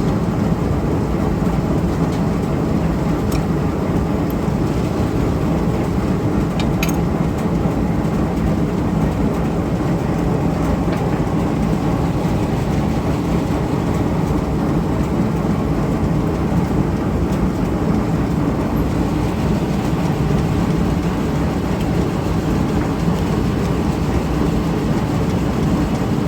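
Antique Champion upright leather sewing machine running off a gas-engine-driven line shaft: a steady, continuous mechanical running noise, with a couple of light clicks.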